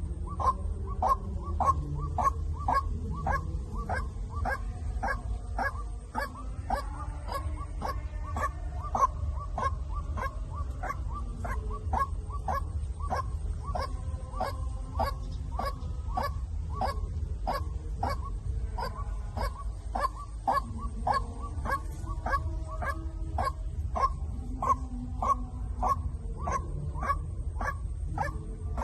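White-breasted waterhen decoy call: a long run of short, sharp, monotonous calls repeated about two to three times a second, over a steady low hum.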